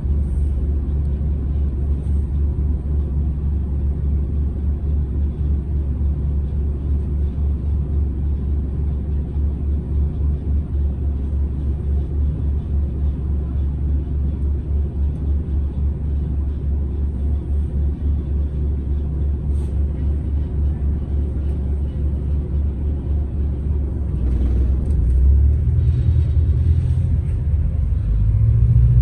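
Volvo B5TL double-decker bus's four-cylinder diesel engine idling with a steady low rumble, heard from inside the bus. About 24 seconds in the engine note rises and grows louder as the bus pulls away.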